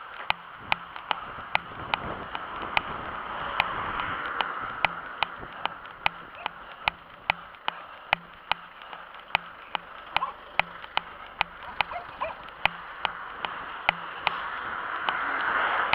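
A runner's footfalls on asphalt, sharp regular clicks about three a second at a steady running cadence. Passing cars' tyre noise swells about four seconds in and again near the end.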